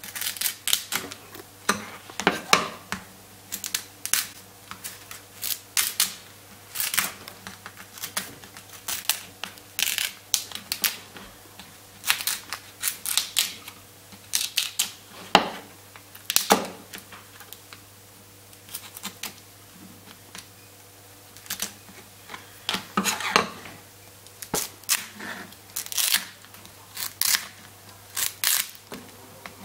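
Sharp kitchen knife cutting and snapping through the shell of a boiled king crab leg on a plastic cutting board: irregular crisp clicks and cracks, pausing for a few seconds in the middle, over a low steady hum.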